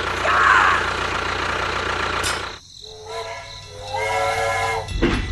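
A steady engine drone that cuts off abruptly about two and a half seconds in. Two pitched, horn-like tones follow, then the engine noise returns near the end.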